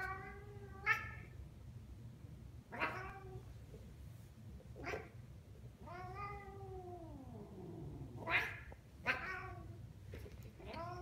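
Domestic tabby cat giving a string of angry yowls, about seven calls, mostly short and sharp, with one long drawn-out yowl about six seconds in that falls in pitch. The cat is guarding a toy ball from a hand reaching for it.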